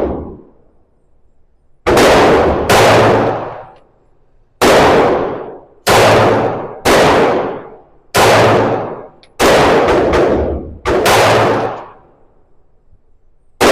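Glock 45 MOS 9mm pistol firing about eight shots at an uneven pace, roughly one a second, each crack followed by a short echo.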